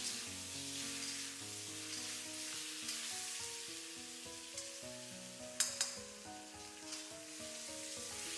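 Slices of winter melon sizzling in hot lard in a wok as they are stir-fried, a steady frying hiss. Two sharp clacks of the utensil against the wok come about five and a half seconds in.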